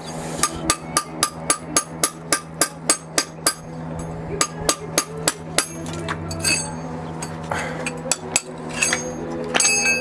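Hand hammer striking old bricks, knocking the mortar off them: quick, even blows at about four a second for the first few seconds, then slower, irregular knocks.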